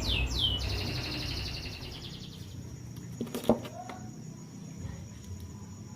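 A bird calling in quick falling notes that stop about half a second in, followed by a high, steady insect trill, with one sharp knock about halfway through.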